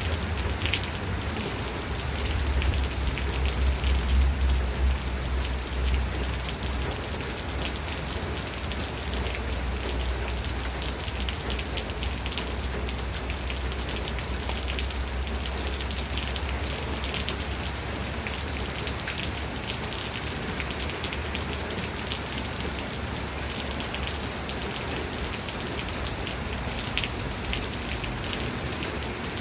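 Steady rain falling on surfaces, with many separate drops ticking through an even hiss. A low rumble swells a couple of seconds in and eases off by about seven seconds.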